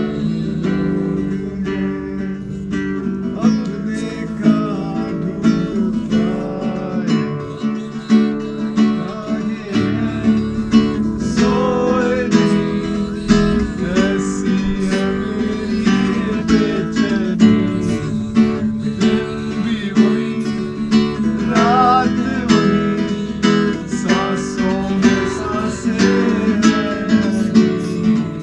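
Acoustic guitar being strummed and picked, with steady chords and a rapid, even rhythm.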